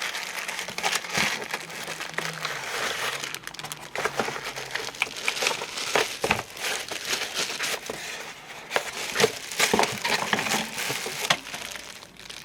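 Packaging being pulled open and handled: crinkling and rustling of plastic wrap and packing material, with irregular sharp crackles and small knocks, dying down near the end.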